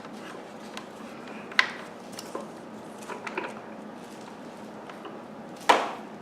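Hard plastic vacuum cleaner parts knocking and clicking as they are handled and fitted together: two sharp knocks, about a second and a half in and near the end, with a few lighter clicks between.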